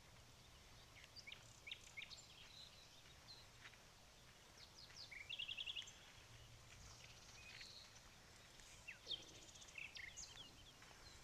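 Faint birdsong: scattered short chirps and whistles, with a quick trill a little past five seconds in.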